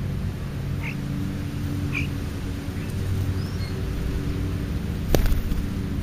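European starlings giving short chirps and whistles several times, one whistle falling in pitch, over a steady low hum. A sharp click comes about five seconds in.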